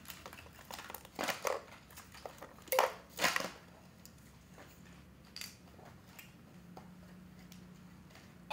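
Sharp clicks and scrapes of small plastic toys, a toy screwdriver and a battery being handled. The clicks are loudest in the first three and a half seconds; after that only a few faint clicks remain.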